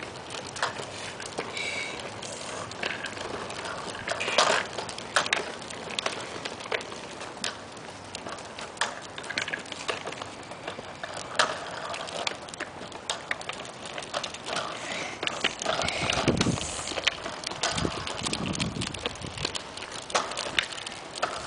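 A child's bike with training wheels and a small tricycle rolling over a concrete sidewalk, their wheels rattling and clicking irregularly throughout.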